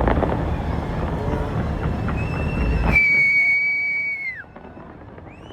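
Loud rumbling din of a fireworks display that cuts off abruptly about three seconds in. Then a single high whistle is held for about a second before its pitch falls away.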